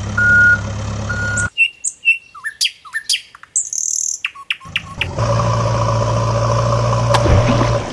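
Heavy-vehicle reversing beeps over a steady engine hum cut off about a second and a half in. Birds chirp for about three seconds, then a steady engine hum starts again near the end.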